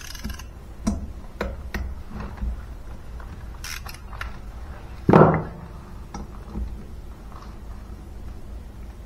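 Hand tools being handled on a moped engine during cylinder removal: a socket ratchet and socket clinking and clicking in scattered single knocks, with one louder knock about five seconds in.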